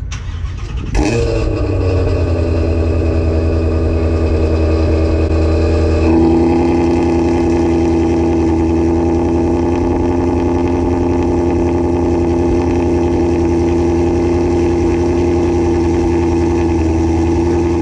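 Ford Mustang Shelby GT350's 5.2-litre V8 starting about a second in, flaring briefly, then settling into a steady idle through the exhaust; the idle note shifts once about six seconds in.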